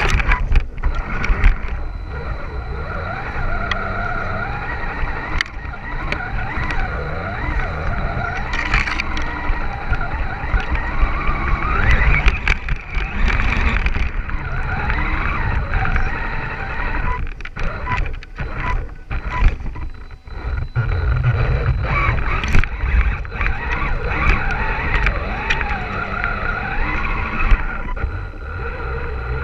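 Electric motor and gear drivetrain of an Axial Wraith RC crawler whining, the pitch rising and falling with the throttle. The truck's body knocks and rumbles as it bounces over rough, stony ground, heard close up from a camera mounted on the truck.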